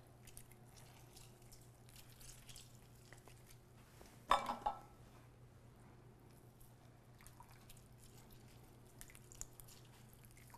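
Limes being squeezed by hand into a bowl of fruit juice: faint dripping of juice and small handling sounds, with one sharp clack a little past four seconds in and a smaller one just after.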